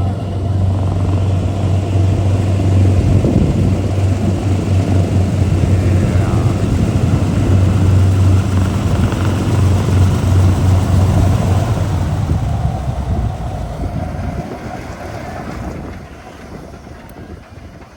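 Piston-engined aircraft running loudly with a steady low drone, then fading away over the last few seconds. Wind noise on the microphone.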